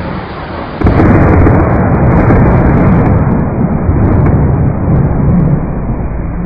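Rain and thunder: a loud thunderclap breaks in about a second in and rumbles on, swelling and easing.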